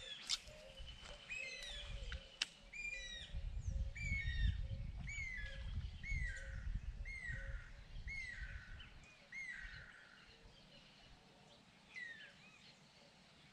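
A bird calling a steady series of short, downward-sliding chirps at regular intervals, which die away after about ten seconds, with one more call near the end. Wind rumbles on the microphone through the first part.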